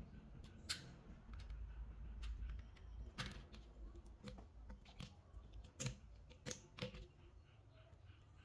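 Light, irregular clicks and scrapes of a utility knife blade and fingers working at the metal end of a small battery, about half a dozen sharp clicks in all.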